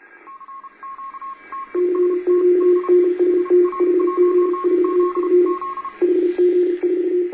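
Morse code beeping over a faint hiss: a higher tone keyed in short and long beeps, joined about two seconds in by a louder, lower tone keyed faster, the two overlapping like competing telegraph signals.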